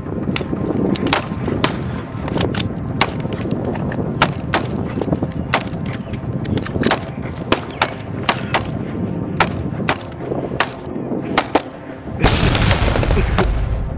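A string of sharp cracks, irregular at about two or three a second, over a steady low rumble, with a loud rushing noise coming in about twelve seconds in.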